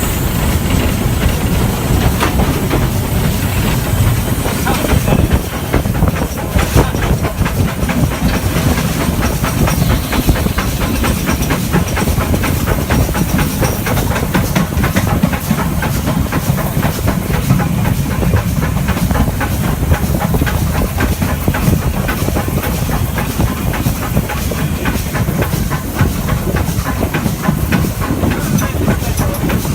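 Stanier 8F two-cylinder 2-8-0 steam locomotive on the move: a steady hiss of steam over a heavy low rumble, with a dense run of clicks from the wheels on the rails.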